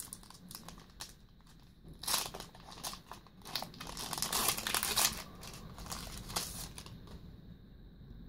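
Foil booster pack wrapper crinkling and being torn open in irregular bursts, loudest about two seconds in and again from about three to five seconds in.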